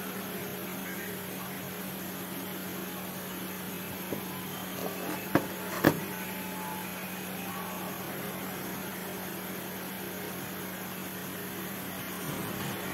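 A steady low hum, with a few short knocks or clicks from about four to six seconds in, the last one the loudest, as the plastic meter housing is handled.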